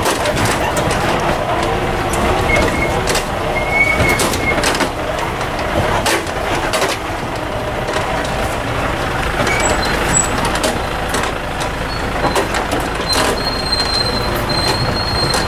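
A heavy vehicle driving over a rough dirt track: steady engine and road rumble, with repeated knocks and rattles from the body jolting over the ruts.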